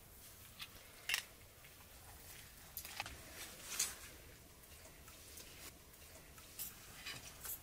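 Metal spoons tapping and scraping against dishes now and then, a handful of short, faint clinks at uneven intervals.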